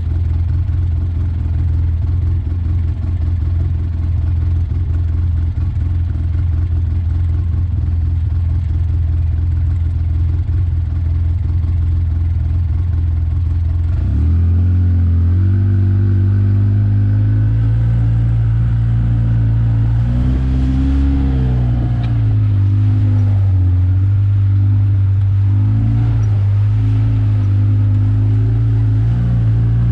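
Off-road vehicle engine idling steadily, then about halfway through it revs up and pulls away, the engine note rising and falling as the vehicle drives along the dirt trail.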